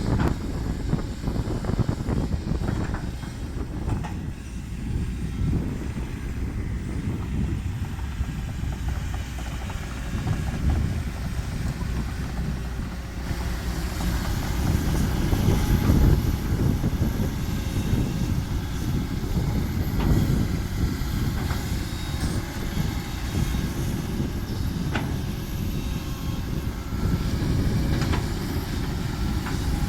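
Heavy diesel dump truck running: a steady low engine rumble that grows somewhat louder around the middle.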